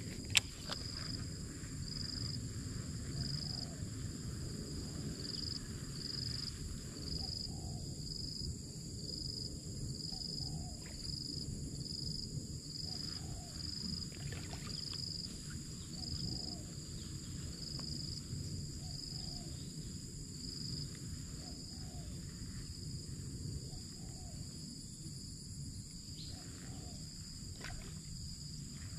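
Outdoor insect chorus: a steady high buzz with a short chirp repeating about once or twice a second that stops about halfway through, over a constant low rushing noise. A single click right at the start.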